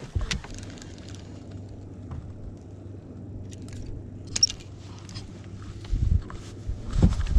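Boat motor running with a steady low hum. A few clicks, then heavier knocks and handling thumps near the end.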